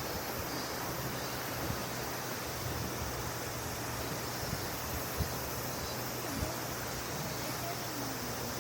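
Steady, even rush of flowing river water, with a few soft low knocks now and then.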